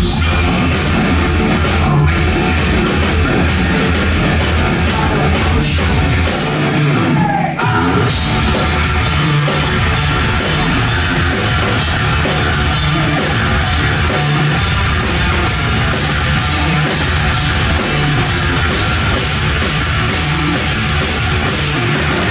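Live rock band playing loud, with electric guitar, bass and drum kit. About six and a half seconds in, the low end drops out for roughly a second, then the full band comes back in.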